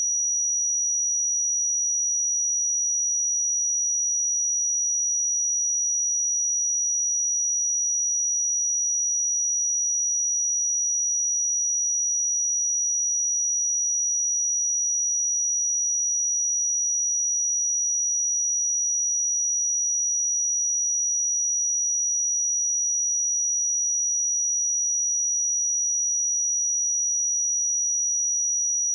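A pure 5812 Hz sine-wave test tone, one steady high-pitched whistle-like note held without change.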